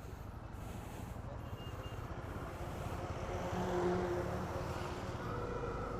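Motorcycle engine running while being ridden, with road and traffic noise; it gets a little louder around the middle.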